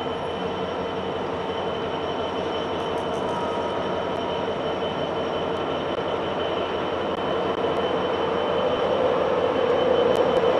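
Steady rail noise with a constant hum, slowly growing louder as an East Coast InterCity 225 electric express approaches the station platform.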